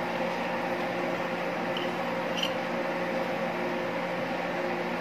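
Steady mechanical hum of kitchen equipment, with a faint click about halfway through.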